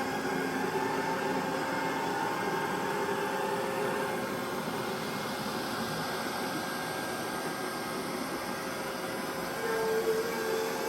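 Neato Botvac D Series robot vacuum running, its suction fan and brush making a steady hiss, working again after a battery replacement.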